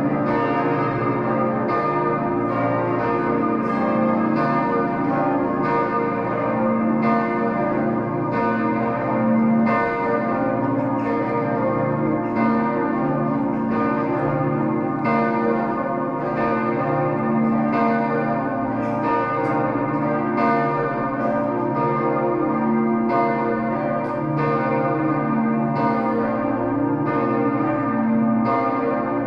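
The twenty bells of the Herrenberg Stiftskirche ringing together in full peal: a dense, continuous wash of many overlapping bell strikes and their ringing tones.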